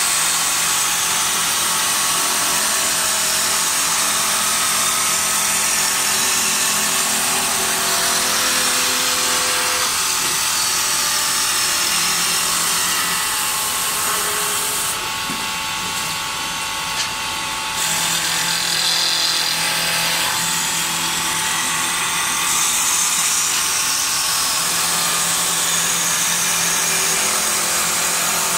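Automatic wood-turning lathes for rolling pins running: a steady, loud mechanical hiss and whir of motors and turning wood. It drops a little for a few seconds about halfway, with one short click.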